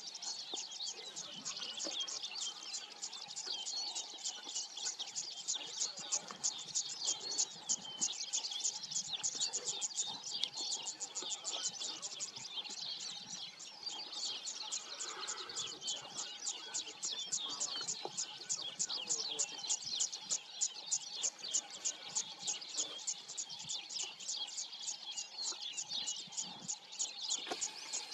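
Birds chirping in a steady chorus of short, high, rapidly repeated notes, about three a second.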